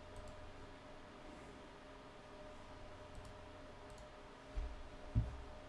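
A few faint computer mouse clicks over a steady low room hum, with two dull low thumps near the end.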